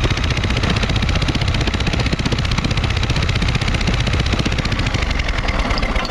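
Electric drill spinning a Briggs & Stratton mower engine over to crank it for a spark test, running steadily with a fast even rhythm, then stopping near the end.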